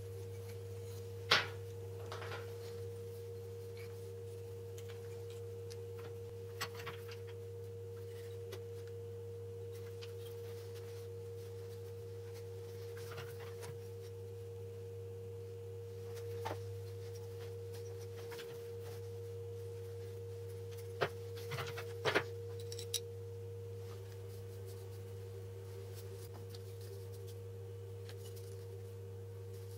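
A steady two-tone hum, one low and one higher, with a few light clicks and taps of small aluminium and wooden parts being handled; the sharpest click comes about a second in and a small cluster of taps comes past the middle.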